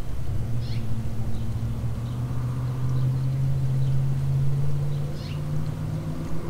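An engine running steadily with a low hum, its pitch rising a little partway through, with a couple of faint high chirps over it.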